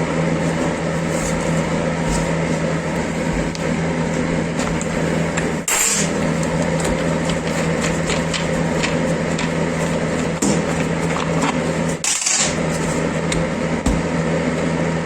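An electric workshop power tool running steadily with a motor hum, broken twice by a brief hiss, about six and twelve seconds in.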